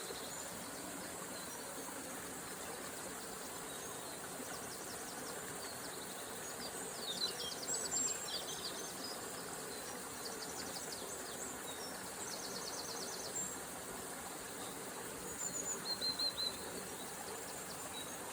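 Steady rush of flowing river water, with songbirds singing over it. Several rapid trills and chirps come and go, loudest about seven seconds in and again near the end.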